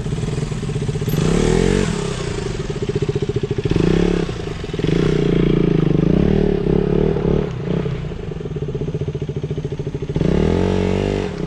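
Motorcycle engine running under load, its revs rising and falling as it is ridden slowly, with a climb in revs near the end.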